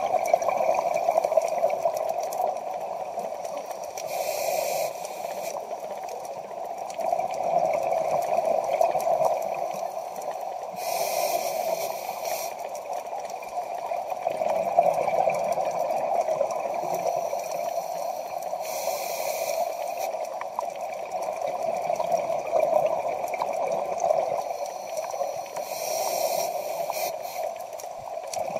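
Scuba diver breathing through a regulator underwater: four hissing inhalations about seven to eight seconds apart, with bubbling exhalation between them, over steady water noise.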